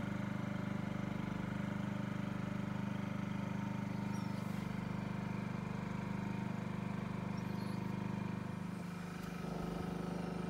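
A boat's diesel engine running steadily: a low, even hum that dips slightly near the end.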